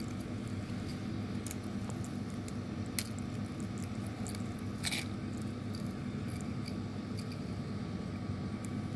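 Hands opening a small plastic toy package: scattered light plastic clicks and crinkles, with two sharper clicks about three and five seconds in, over a steady low hum.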